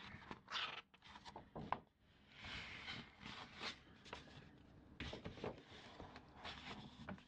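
Soft, irregular rustling and scraping of paper as the pages of a paper calendar are handled and turned.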